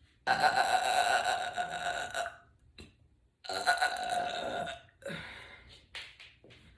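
Two long, loud burps from a woman, the first lasting about two seconds and the second about a second and a half, brought up by gulps of carbonated sparkling water.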